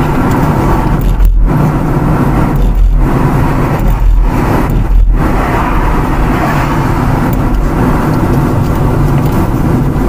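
Car driving on a road, heard from inside the cabin: steady engine and tyre noise, with a few heavier low rumbles in the first half.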